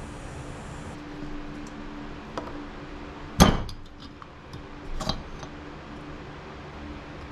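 Metal parts of a Stihl 015L chainsaw engine being handled and set down on a workbench. There is a sharp clunk about halfway through, a smaller clink about a second and a half later, and a few light taps.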